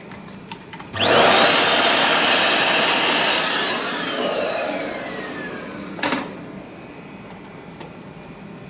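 Small IC engraving machine's high-speed motor switching on with a hiss and a whine that rises quickly and holds steady, then switching off and winding down with a falling whine that fades over a couple of seconds. A few light clicks come just before it starts, and a single sharp click as it winds down.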